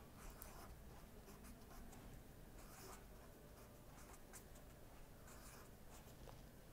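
Faint scratching of a pen writing numbers on graph paper, in short irregular strokes.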